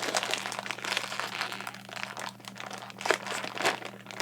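Candy packaging crinkling and rustling in the hands as it is opened, with irregular crackles throughout.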